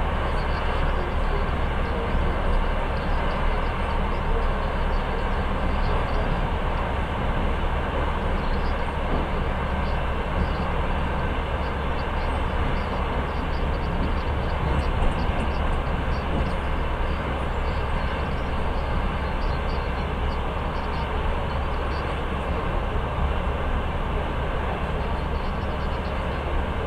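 Passenger train carriage running steadily along the track, heard from inside by the window: a continuous low noise of wheels on rails and rushing air.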